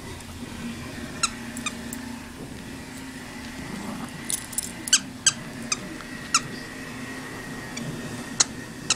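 Short, sharp squeaks from a squeaky stuffed toy being bitten and shaken by a Yorkshire terrier in play, about ten of them at irregular intervals and bunched in the middle.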